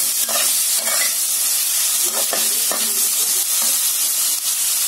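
Shredded vegetables sizzling in hot oil in a kadhai while a steel spoon stirs them. The spoon scrapes against the pan several times over a steady sizzle.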